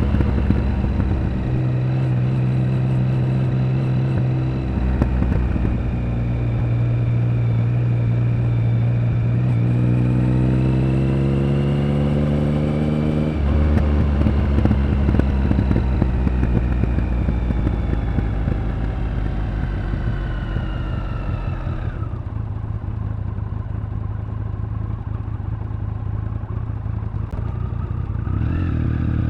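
Triumph Speed Triple 1050's inline three-cylinder engine and exhaust under way. The revs climb for a few seconds before a gear change a little before the middle. It then runs steadily, and the revs fall off about three quarters of the way through as the throttle closes.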